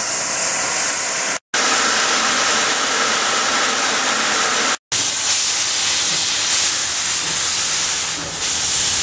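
Loud hissing of steam locomotives blowing off steam through their open cylinder drain cocks, in three stretches broken by two brief dropouts, about one and a half and nearly five seconds in.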